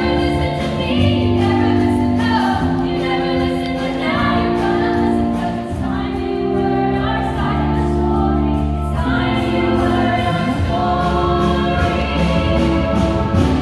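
A musical-theatre cast singing together in chorus over instrumental accompaniment, with long held notes that change chord every second or two.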